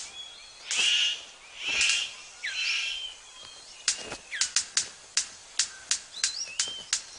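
Male superb bird of paradise in courtship display: three harsh rasping calls in the first three seconds, then a run of sharp clicks, about three a second, with a few thin chirps gliding in pitch among them.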